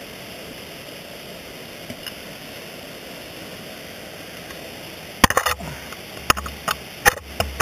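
Steady hiss, then from about five seconds in a quick run of sharp clicks and scrapes: ice-tool picks and crampon points striking and scraping on rock while dry tooling.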